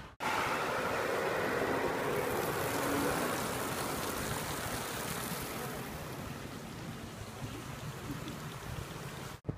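Fountain water splashing into its basin: a steady rushing splash, loudest over the first few seconds and easing somewhat after that.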